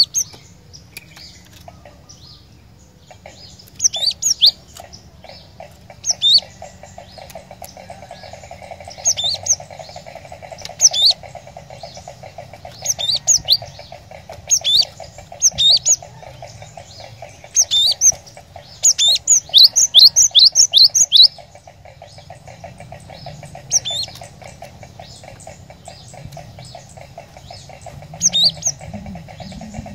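Cinereous tit (glatik batu) singing: sharp, high two- and three-note chirps repeated every second or two, with a fast run of about six notes near the middle. A steady buzzing drones underneath from a few seconds in.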